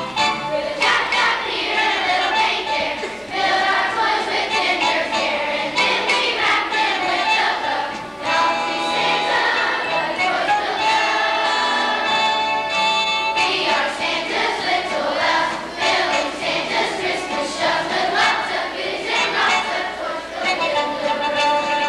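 Children's choir singing a song together with musical accompaniment.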